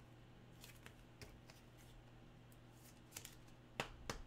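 Near silence with a faint steady hum, broken by a few soft clicks and taps of trading cards being handled. The clearest two come near the end.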